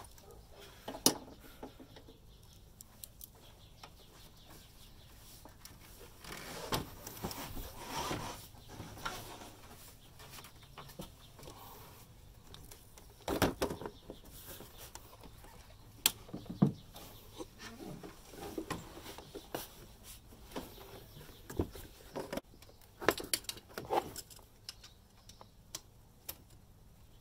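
Hand-work noise in a truck engine bay: scattered light clicks, knocks and rustling as a thermostat housing and its bolts are worked into place, with a cluster of sharper knocks near the end.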